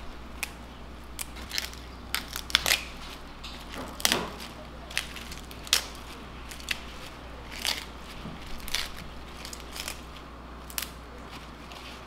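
Curly kale leaves being torn by hand from their stems: short, crisp tearing and crackling sounds at irregular intervals.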